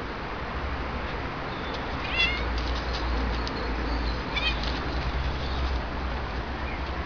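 Bengal cat meowing twice, two short high-pitched meows about two seconds apart, over a low steady hum.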